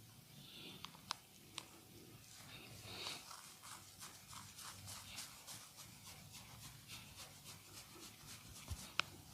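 Hands massaging a person: a few sharp clicks, then a run of soft, rapid rubbing or patting strokes at about four a second, and one louder sharp click near the end.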